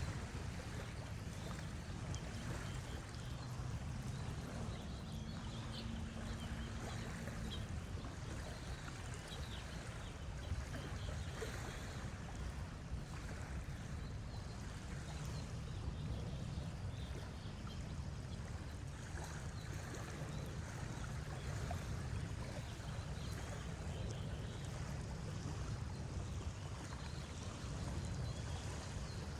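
Steady rush of moving water with a heavy low rumble underneath.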